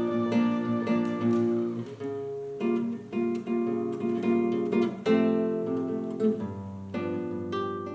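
Music on plucked acoustic guitar: a run of single picked notes, each ringing and dying away, growing quieter toward the end.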